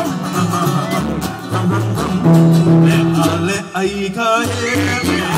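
Hawaiian hula song: singing over plucked guitar and a steady, rhythmic bass line.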